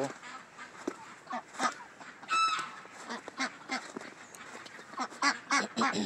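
Waterfowl calling: scattered short honks and quacks, one clear held honk a little over two seconds in, and a quick run of calls near the end.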